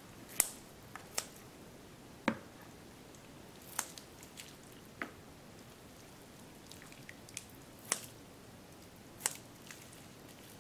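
Kitchen scissors snipping soaked rice vermicelli over a bowl of water: short, sharp snips at uneven intervals, about one every second or so.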